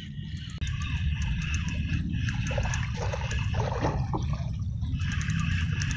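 Footsteps rustling through wet marsh grass, picked up by a chest-mounted phone, over a steady low rumble on the microphone.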